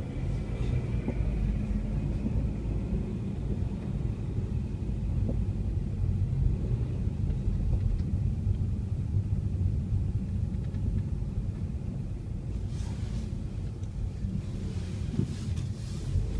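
Car driving, heard from inside the cabin: a steady low rumble of engine and road, with a few brief hissing swishes near the end.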